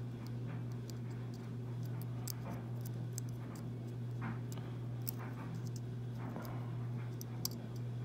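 Faint, scattered metallic clicks and scrapes of a small steel dig-out pick probing inside an emptied brass Segal lock cylinder housing, over a steady low hum.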